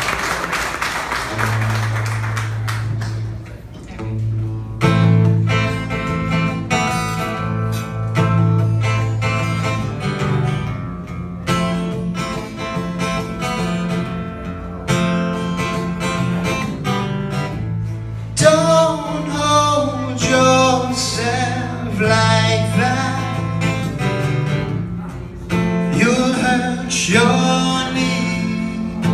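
Acoustic guitar playing live as the applause dies away, with singing coming in about two-thirds of the way through.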